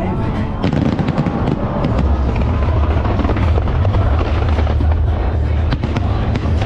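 Aerial fireworks bursting in quick succession with a deep continuous rumble, over music playing along with the show.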